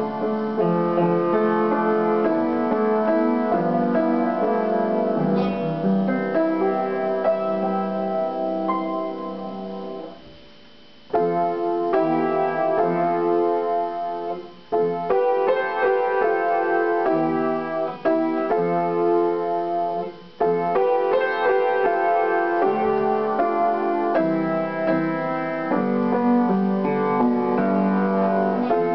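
Upright piano played solo, with chords and melody in a flowing piece. About ten seconds in, the playing fades and stops for about a second before going on.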